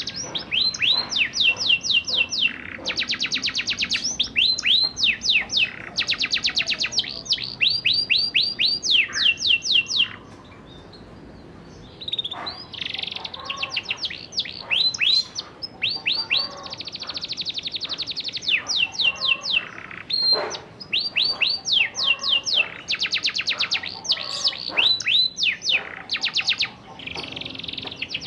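A young canary sings in long rolling trills ('ngerol') of fast repeated sweeping notes, phrase after phrase. There is a short pause about ten seconds in.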